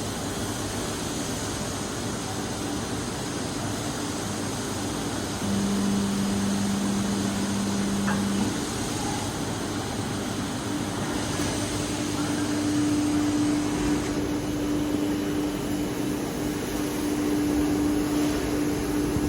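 Hydraulic high-frequency plastic welding machine running: a steady mechanical drone. A low hum comes in about five and a half seconds in and stops three seconds later, and a slightly higher steady hum takes over for the second half.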